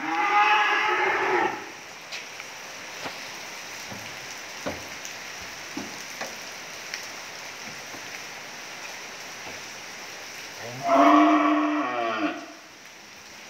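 Cattle mooing twice: one moo of about a second and a half at the start, and another near the end.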